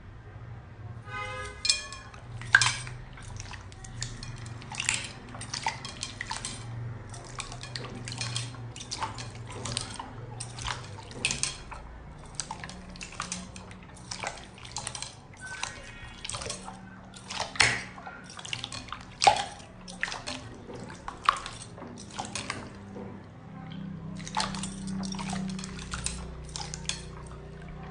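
Hands squishing and pressing clear slime mixed with sprinkles in a glass bowl of water, making irregular wet squelches, splashes and clicks.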